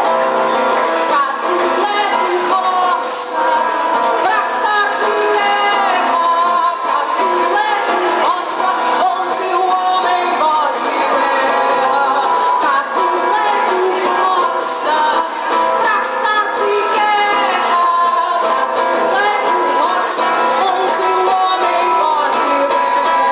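Live song performance: a voice singing over acoustic guitar accompaniment.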